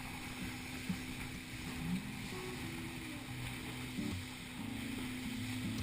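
A boat's motor running with a steady hum, over a constant hiss of wind and water.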